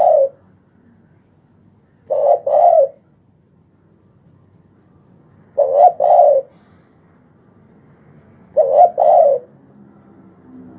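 Spotted dove cooing: a two-part phrase repeated three times, about three seconds apart, with the end of another phrase right at the start.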